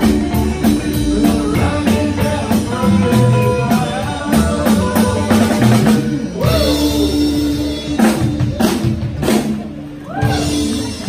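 Live rockabilly band playing, with upright bass, electric guitars and drum kit. The music stops short about six seconds in, then a run of hard ensemble hits with the drums closes the song, and the sound dies down near the end.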